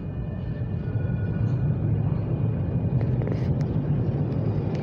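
A steady low rumble that grows slightly louder, with faint thin high tones over it and a few light clicks.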